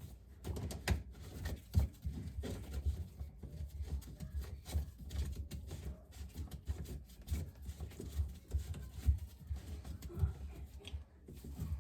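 Irregular small knocks, clicks and scrapes of hands working plastic sink drain parts, screwing the drain elbow's slip nut back on by hand.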